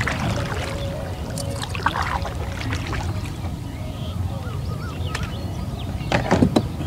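Water splashing as a hooked Asian sea bass (barramundi) thrashes at the surface beside a kayak: short bursts near the start and about two seconds in, and a louder one near the end, over a steady low rumble.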